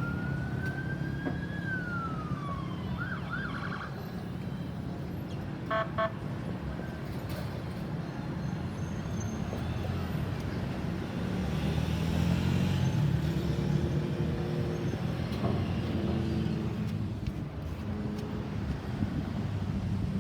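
Emergency vehicle electronic siren sweeping once up and back down, followed by a brief fast warble and, about six seconds in, a short pitched horn-like blast. The rest is a steady low rumble of road traffic.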